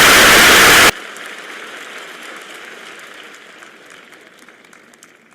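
Very loud crowd cheering cuts off abruptly about a second in, leaving fainter cheering and scattered clapping that die away gradually.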